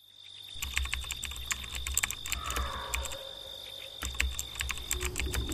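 Rapid, irregular clicking over a steady high-pitched tone and a low hum that comes and goes.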